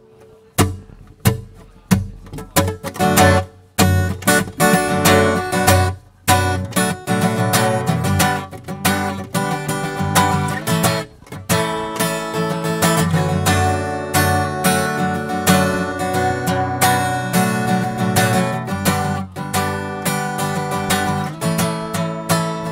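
Acoustic guitar strummed in chords, with no singing. It starts about half a second in, stops briefly a few times in the first six seconds, then runs on steadily.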